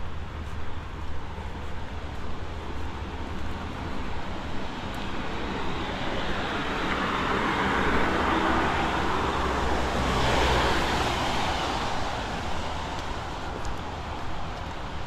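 A road vehicle passing on a wet road, its engine rumble and tyre hiss swelling over several seconds, loudest about ten seconds in, then fading, over a steady background of rain.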